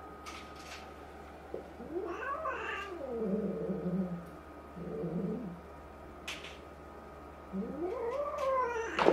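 A cat giving a threat yowl at another cat: two long moaning calls that rise and then fall, the first running on into a low growl, with a sharp knock near the end.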